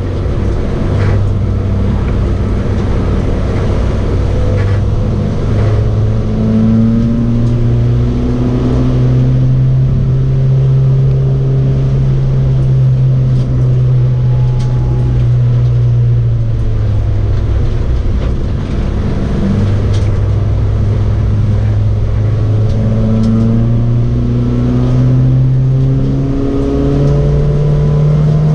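Honda Civic EG's B18C 1.8-litre four-cylinder VTEC engine heard from inside the stripped cabin, pulling hard with its pitch rising over several seconds, then dropping back with gear changes and lifts for corners, several times over.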